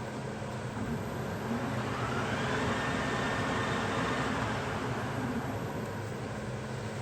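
HUVEMA metal lathe running with a steady motor and gearbox hum. A band of hiss swells over the first few seconds and eases off again before the end.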